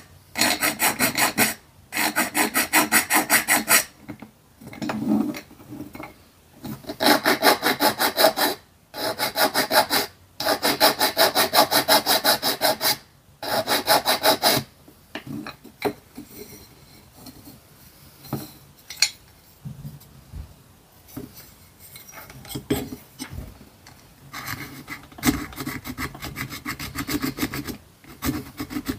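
A small hand file rasps on the edges of a die-cast zinc-alloy toy truck chassis in runs of quick back-and-forth strokes, broken by short pauses. The filing goes lighter through the middle and picks up again near the end.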